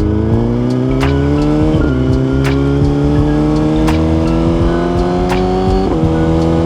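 2023 Suzuki GSX-R1000's inline-four engine pulling under acceleration, its pitch climbing slowly, with two upshifts where the pitch drops, about two seconds in and near the end. Wind buffets the helmet microphone with a low rumble.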